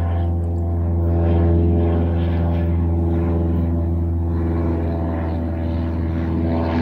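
Small propeller plane flying overhead: a steady, low drone from its engine and propeller.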